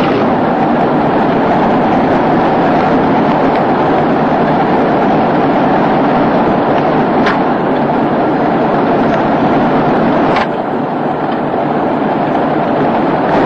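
Tracked all-terrain vehicle's engine running steadily under load as it tows a second, stuck vehicle out of deep snow on a cable. Two short clicks come about seven and ten seconds in.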